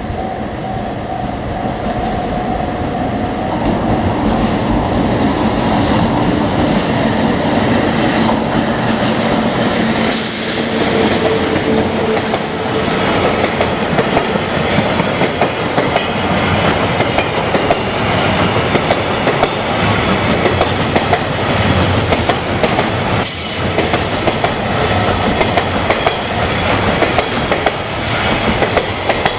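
Freight train's wagons rolling past at close range, their wheels clacking over the rail joints in a steady run of rattling noise.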